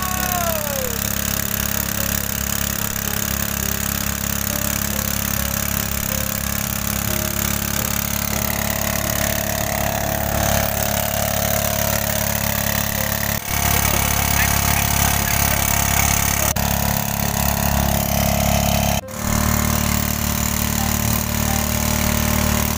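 Small petrol engine driving a portable water pump, running steadily under load as it pumps water out of a ditch. The sound breaks off briefly twice, once about halfway and again near the end.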